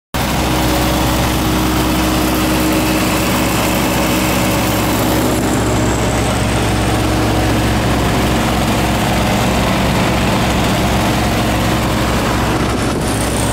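Lincoln Vantage 400 engine-driven welder-generator's diesel engine running steadily.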